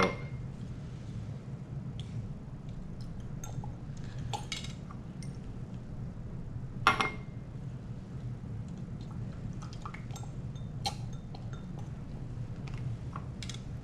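Scattered light clinks and taps of glass lab beakers and a plastic weighing boat being handled during rinsing with a dropper, with one sharper glass clink about seven seconds in. A steady low hum runs underneath.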